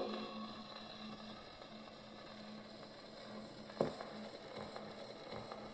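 Electrola model 130 acoustic gramophone playing on past the end of the music: the last band note cuts off at the start, leaving the steel needle's faint hiss and low hum of surface noise from the spinning shellac 78, with one sharp click about four seconds in.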